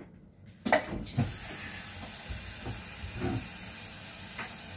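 A couple of knocks, then a kitchen tap turned on about a second in and running steadily as water fills a measuring cup.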